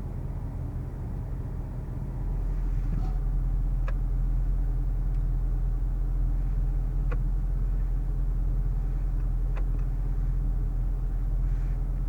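A 2014 Range Rover Sport's supercharged V8 and road noise heard from inside the moving car: a steady low drone that grows louder about two seconds in and then holds level, with a few faint ticks.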